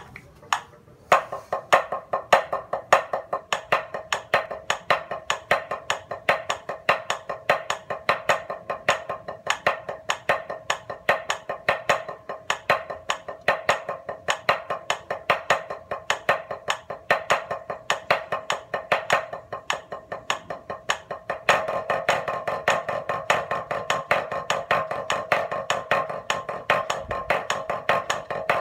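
Drumsticks playing a triplet grid on a drum practice pad: a steady, fast stream of strokes in triplets with regular louder accented strokes. The playing starts about a second in after a couple of taps, and gets louder and denser about three quarters of the way through.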